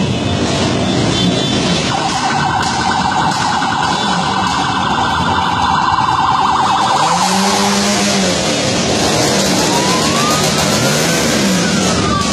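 Many motorcycle engines running and revving together in a slow-moving group, with a police siren over them. The siren gives a fast warble for about five seconds, then a slow wail that rises and starts to fall near the end.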